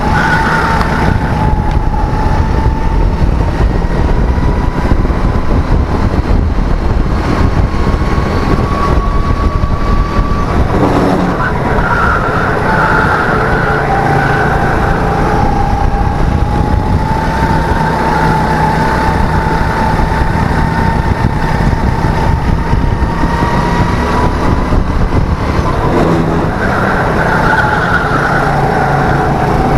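Go-kart engine running hard, heard from the driver's seat of a Birel N35 kart. The engine note climbs slowly through each stretch, then drops sharply about eleven seconds in and again near twenty-six seconds in, as the driver lifts off for corners.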